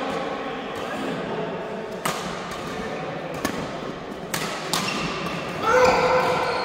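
Badminton rally: sharp hits of rackets striking the shuttlecock, irregularly a second or so apart, with the reverberation of a large sports hall. Near the end a louder, held squeal lasts about a second.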